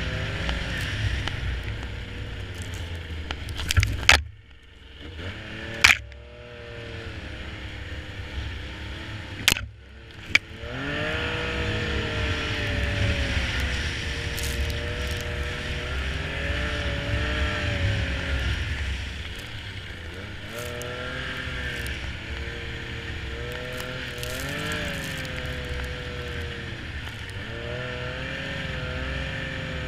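Snowmobile engine running and revving up and down as it rides through snow, its pitch rising and falling repeatedly. A few sharp knocks stand out about four, six and ten seconds in.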